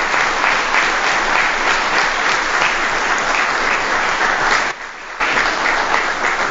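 Audience applauding steadily: dense clapping from many hands. The applause dips for about half a second roughly five seconds in, then picks straight back up.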